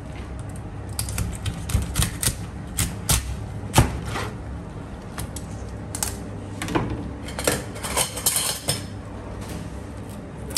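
A chef's knife and then kitchen shears cutting through a lobster's shell on a plastic cutting board: a run of sharp clicks and cracks, thickest near the end, over a steady low hum.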